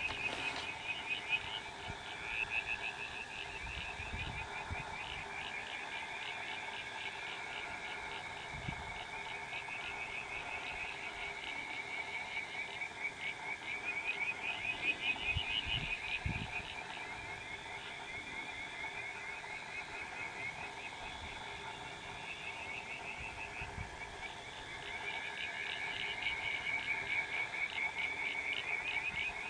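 Frogs calling in a steady chorus of rapid pulsed trills, with a few faint low thumps now and then.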